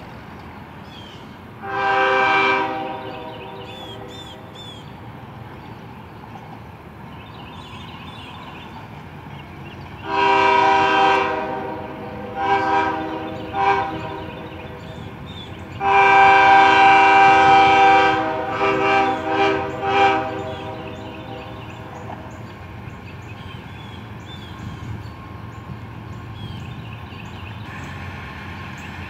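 Freight locomotive air horn, on a CSX ES40DC, sounding a series of blasts as the train approaches. A short blast comes about two seconds in, a long one at about ten seconds with two short toots after it, then a long blast around sixteen seconds and several quick short ones. Under it runs the low rumble of the oncoming train, growing near the end.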